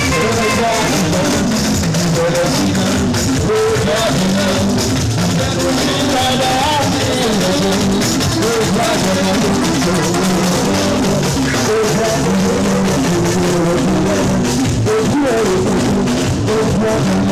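Live band music: a male singer on a handheld microphone over electric guitars, bass guitar, lap steel guitar and drums, playing steadily throughout.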